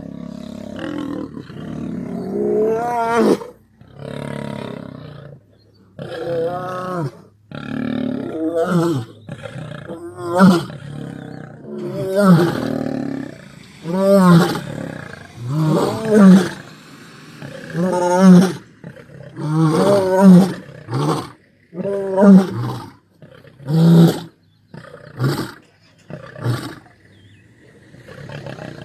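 Male lions roaring: a long bout of deep, pitched calls coming every second or two, loudest around the middle and breaking into shorter calls near the end.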